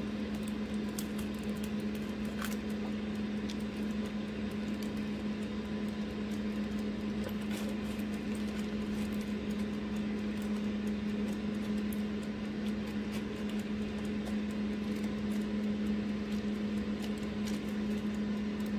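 Steady hum of a running kitchen appliance, one constant low tone, with a few faint metallic ticks and scrapes from metal tongs on the aluminium foil as salmon fillets are turned.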